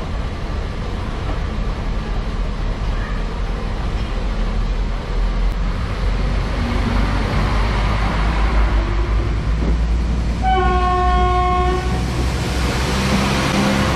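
Polregio SA134 diesel multiple unit pulling out of the station and passing close by, its diesel engines running and wheel noise building as the cars go past. One horn blast of a little over a second sounds about two-thirds of the way in.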